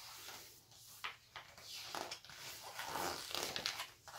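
Pages of a large picture book rustling and flapping as they are turned by hand.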